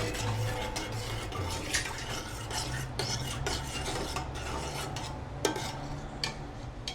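A spoon or utensil stirring and scraping in a bowl, with scattered light clinks against the sides, over a steady low hum.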